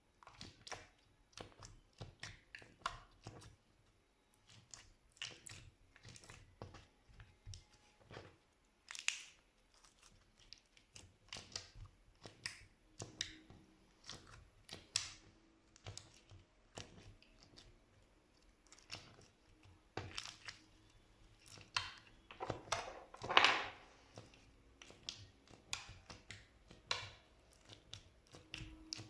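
Slime being worked, giving irregular sticky clicks and crackling pops, with a longer, louder crackle about two-thirds of the way through.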